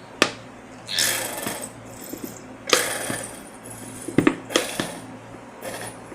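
A nearly empty squeeze bottle of dish soap being squeezed into a bowl: three hissing, sputtering squirts of soap and air, with several sharp clicks and knocks of plastic in between.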